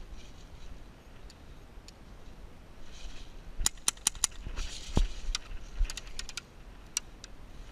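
Airsoft guns firing: a quick run of four sharp cracks about halfway in, a louder one a second later, then scattered single shots, with some soft rustling between them.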